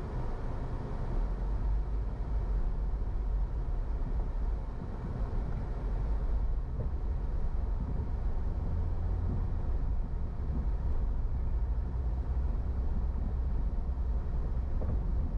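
A car driving through city streets: a steady deep rumble of engine and tyre noise, even throughout.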